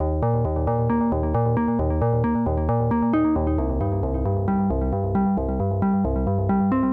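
Background music: synthesizer and electric-piano notes over a steady pulsing bass.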